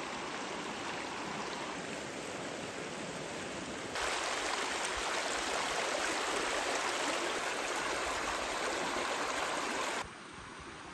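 Shallow river water rushing over rocks and around boulders, a steady rush that jumps louder about four seconds in and drops much quieter near the end.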